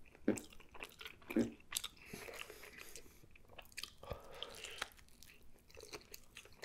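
A person biting and chewing a messy breakfast burger on a toasted everything bagel: a scattered run of short bites, crunches and wet mouth sounds.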